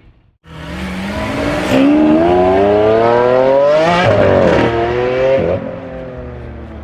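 Audi RS3 8V's turbocharged 2.5-litre five-cylinder engine accelerating hard: the revs climb steadily for about two seconds, break briefly, climb again, then settle back to a lower steady pitch near the end.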